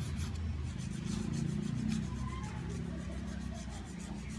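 Nail file rasping across fingernails in quick, repeated strokes, over a steady low hum.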